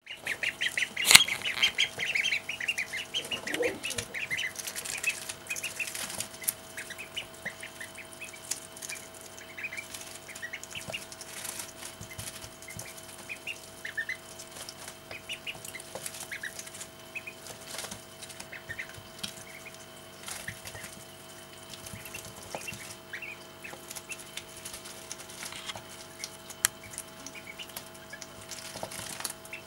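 Call duck ducklings peeping in short, high cheeps, thickly for the first five seconds or so and then now and then, with many sharp clicks and taps as their bills peck and tear at lettuce leaves.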